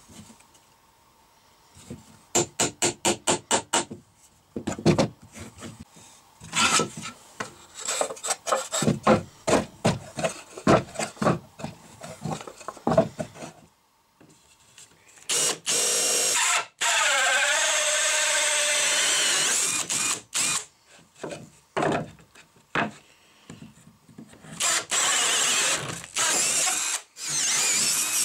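Cordless drill spinning a bi-metal hole saw through an MDF board, in several runs of a few seconds each with a steady cutting noise that wavers in pitch. Before the drilling there is a quick run of about ten knocks, followed by scattered knocks and rubbing from handling work.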